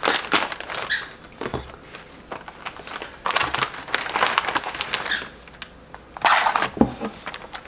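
Plastic snack packaging crinkling and rustling in several short bursts as a boxed tray of mochi is unwrapped and handled, with a soft knock near the end.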